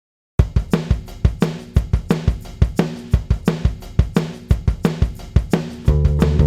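Background music: a drum-kit beat starts about a third of a second in, with steady kick, snare and hi-hat hits, and sustained pitched instruments join near the end.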